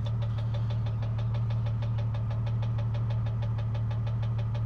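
Jeep Cherokee 4.0-litre inline-six running steadily with a rapid, even tick-knock from the top end, several a second. The owner takes it for cam or valvetrain related, following rpm at half crank speed and not changing with load, and new lifters have not cured it.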